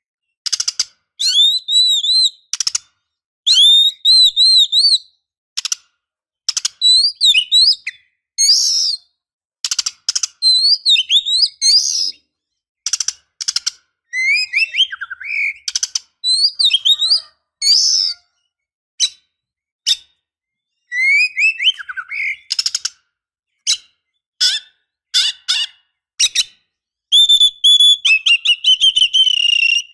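Female oriental magpie-robin calling from a cage in short bursts of sharp chirps and whistled, up-and-down notes, separated by brief silences, with a longer rapid run of notes near the end. These are the female's breeding calls, used as a lure to get male magpie-robins singing.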